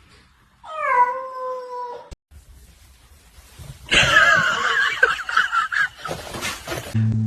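A cat meows once, a call of about a second that dips slightly in pitch, then, about four seconds in, gives a longer, loud, wavering high-pitched cry lasting about two seconds.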